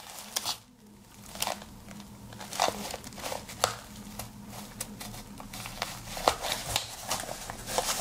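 A polyester organizer pouch and its belt clip being handled: fabric rustling and crinkling with scattered light clicks and taps.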